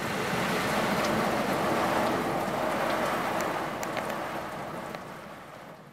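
Water spraying onto a car in an automatic car wash: a steady hiss of spray with a few faint ticks, fading out near the end.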